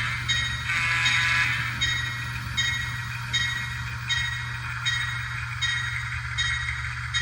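Digitrax sound decoder in an N-scale Kato PA1 playing diesel locomotive sounds through a small 16 mm 8-ohm speaker. A horn sounds until about a second and a half in, then a bell rings in even strokes about every three-quarters of a second over a steady low engine hum. The owner judges that the new speaker has fixed the sound level.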